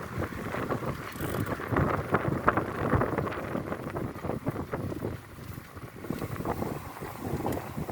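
Wind buffeting the microphone of a camera on a moving bicycle, an uneven rushing rumble that surges and dips, easing off for a moment about five seconds in.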